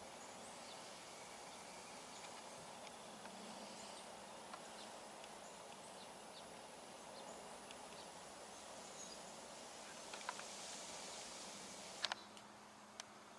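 Faint outdoor background: a low steady hiss with scattered small chirps and ticks, and a few sharper clicks near the end.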